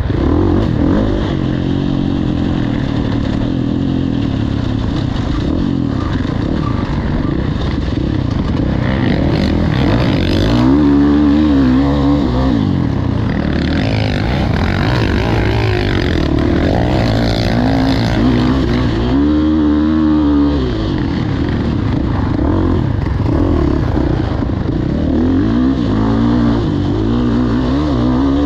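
KTM 450 SX-F motocross bike's four-stroke single-cylinder engine being ridden hard, its revs climbing and dropping over and over as the throttle is worked, with big rev swells about ten seconds in and again near twenty seconds.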